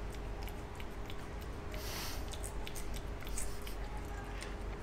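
A cat licking and chewing a lickable cat treat squeezed from a tube held close to it: a run of small irregular wet clicks, with a short breathy sniff about two seconds in.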